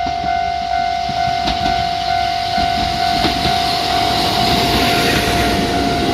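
Level-crossing warning bell ringing in a steady repeating pattern, about two strokes a second, as a Kotoden train approaches; the train's wheel-on-rail rumble grows louder from about three seconds in.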